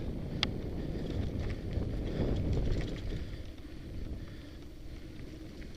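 Wind buffeting a helmet-mounted camera's microphone, over the rumble of a mountain bike rolling along a dirt singletrack, with a faint tick about half a second in. The noise eases off after about three seconds.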